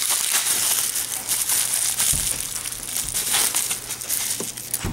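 Bubble wrap and plastic bags crinkling and rustling as they are handled, a continuous crackly rustle with a soft knock about two seconds in.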